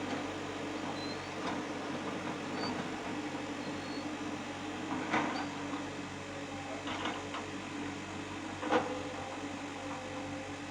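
Excavator's diesel engine running steadily, with several sharp metallic clunks from the machine about halfway through and near the end.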